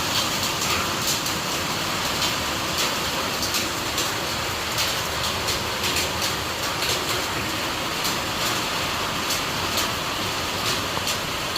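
Steady rainfall: an even hiss of rain with many sharp drop hits scattered through it.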